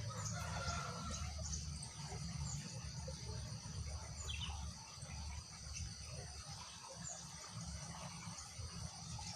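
Steady chorus of insects with short high chirps scattered through it, a brief run of falling notes about four seconds in, and a low rumble underneath.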